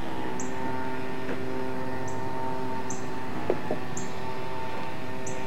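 A steady hum made of several held tones, with five short high chirps spread irregularly through it and a brief click about three and a half seconds in.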